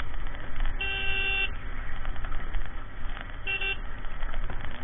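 A vehicle horn sounding twice, a longer toot followed a couple of seconds later by a short one, over the steady low rumble of a motorcycle riding through wind.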